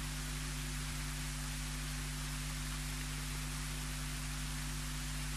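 Steady hiss with a low electrical hum: the background noise of the recording and sound system, with nothing else sounding.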